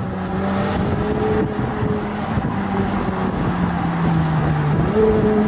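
McLaren Senna's twin-turbo V8 through a Novitec Race GTR exhaust, running at steady low revs. Its note sags slightly in pitch, then lifts briefly near the end.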